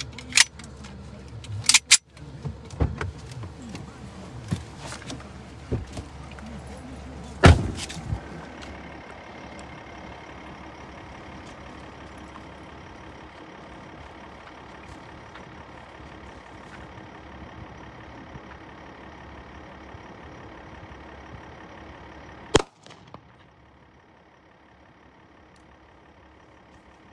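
A run of sharp knocks and clicks, the loudest about seven and a half seconds in, then a steady low rumbling noise that ends with one more sharp knock.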